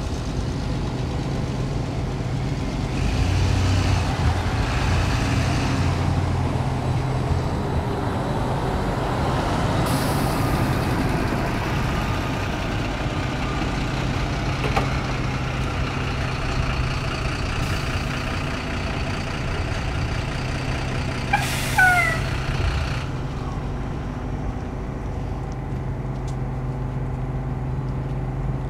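City bus engine running with a steady low hum, with a hiss of released air about ten seconds in and another around twenty-two seconds, the second joined by a few short falling squeaks.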